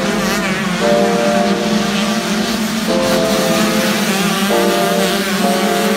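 Several 125cc two-stroke motocross bikes racing past together, engines held high and revving, their pitches jumping as riders shift and blip the throttle.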